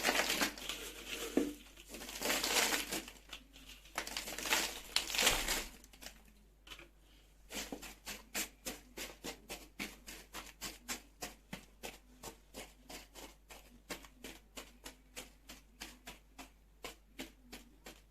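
Dry sawdust being scooped and poured, a rustling hiss in bursts for the first few seconds, followed by a steady run of light ticks about three a second.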